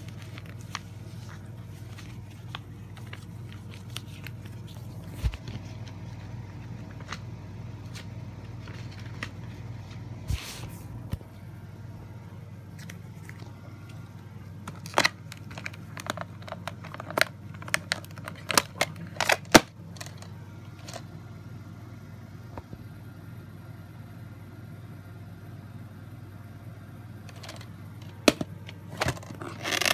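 Handling of a VHS tape's plastic clamshell case and paper insert: scattered clicks, rustles and scrapes, with a run of sharp clicks about halfway through and more near the end, over a steady low hum.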